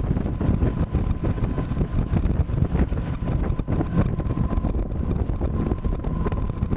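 Wind buffeting the microphone aboard an open fishing boat on choppy water: a heavy, uneven low rumble that keeps rising and falling, with a thin steady whine underneath.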